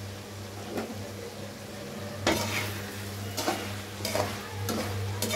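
Slotted metal spatula stirring potatoes and flat beans in a metal karahi: a run of quick scrapes against the pan, starting about two seconds in, with the curry frying softly underneath.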